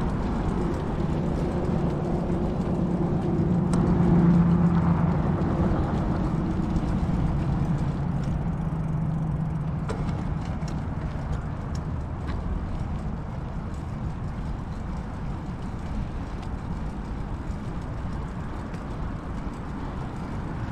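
Steady wind and road rush from riding a bicycle, with a passing motor vehicle's hum that swells about four seconds in and fades away by about ten seconds.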